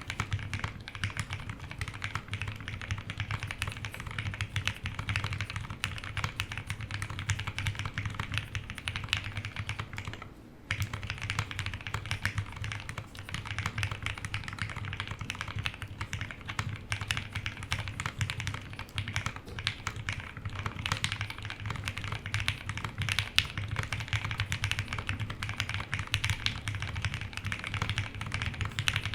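Steady typing on an HHKB Polaris mechanical keyboard built with lubed Gateron Black Ink V2 linear switches, a POM half plate, case foam and PBT keycaps. The keystrokes have a soft, thocky sound. The typing pauses briefly about ten seconds in.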